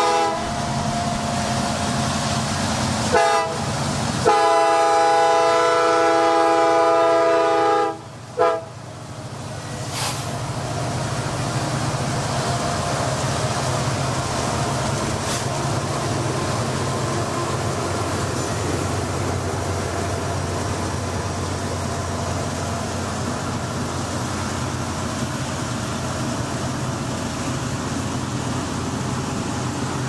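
Lead locomotive's horn (a CN SD70M-2) sounding a chord of several notes: a blast cutting off just after the start, a short toot about three seconds in, a long blast from about four to eight seconds, and a brief final toot. After that the locomotives' diesel engines drone steadily as the freight cars roll past with steady wheel-on-rail noise.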